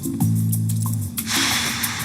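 Tense film underscore: a low held note about a second long, then a hissing noise that swells in and carries on.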